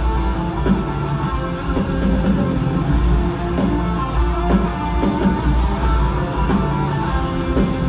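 Metalcore band playing live: distorted electric guitars, bass and drums in an instrumental passage between vocal lines, loud and steady throughout.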